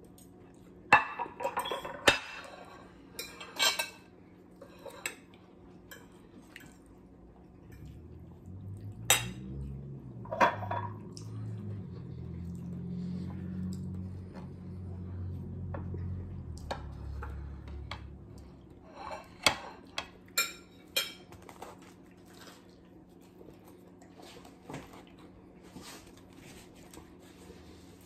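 Forks and spoons clinking and scraping against ceramic plates and a serving dish during a meal, in scattered sharp clinks. A low hum runs for several seconds in the middle.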